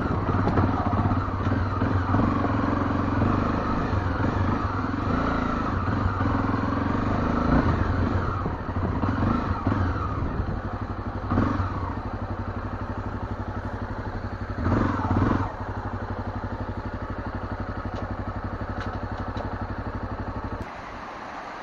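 Motorcycle engine running steadily, with a couple of brief rises in engine sound, then dropping away shortly before the end.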